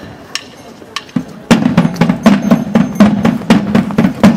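A few isolated sharp taps, then accordion folk music starting about a second and a half in with a brisk percussion beat of about four strikes a second.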